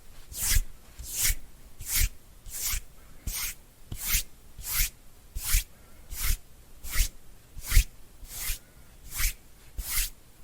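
Hands rubbing together palm against palm in steady back-and-forth strokes, a swish about every 0.7 seconds.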